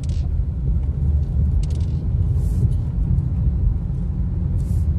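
Car driving slowly, heard from inside the cabin: a steady low rumble of engine and tyres, with a couple of brief faint hisses.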